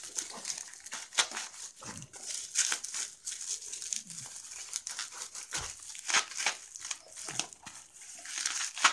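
Bubble wrap and plastic packaging crinkling and rustling in irregular crackles as it is pulled off a phone by hand.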